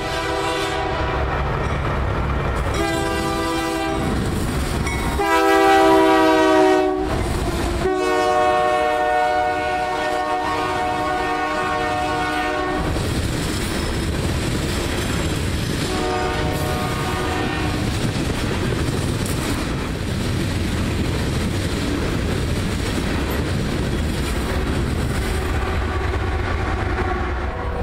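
Union Pacific diesel freight locomotive's air horn sounding a series of long chord blasts as the train approaches, the longest lasting about five seconds, then a short blast further on. Coal hopper cars roll past with continuous wheel-on-rail rumble and clatter, and near the end a locomotive in the train goes by with its diesel engine's low rumble.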